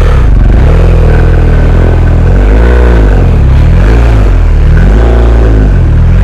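Adventure motorcycle engine revving up and down over and over, its pitch rising and falling about four or five times as the rider works the throttle over rough, washed-out ground.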